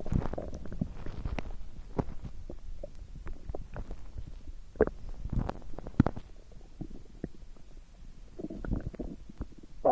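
A person's stomach and intestines gurgling and rumbling: irregular bubbly gurgles broken by short, sharp pops, with a few louder ones around the middle.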